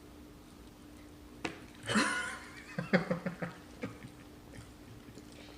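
A baby's voice: a loud high squeal about two seconds in, then a quick run of short giggling sounds, with a couple of light taps around it.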